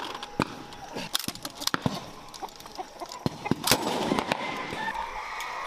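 Scattered gunshots cracking at irregular intervals, one louder shot a little after the middle. A steadier background noise rises over the last second or two.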